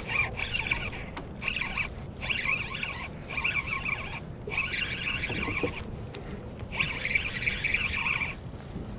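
Spinning reel's drag buzzing in about seven short bursts as a hooked king salmon pulls line off against it.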